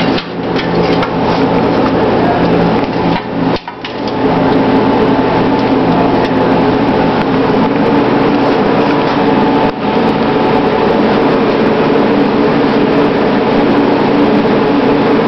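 Loud, steady machinery hum with a dense rattle running through it, typical of kitchen equipment such as fans or refrigeration.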